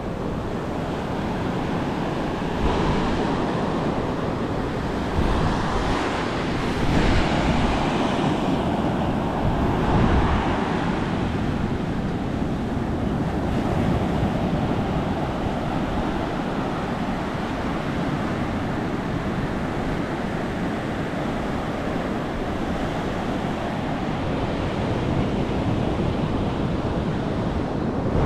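Surf on a sandy beach: waves breaking and washing up the shore, swelling louder several times in the first ten seconds, with wind rumbling on the microphone.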